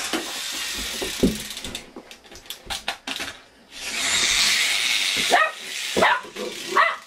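A loud hissing rush of noise about four seconds in, then a boxer dog giving three short yelps near the end.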